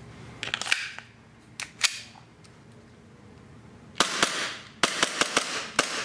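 Elite Force Glock 19 gas blowback airsoft pistol being loaded and fired. The magazine is seated with a few clicks, followed by two more clicks. About four seconds in, a single sharp shot is followed by a quick string of shots, about five a second.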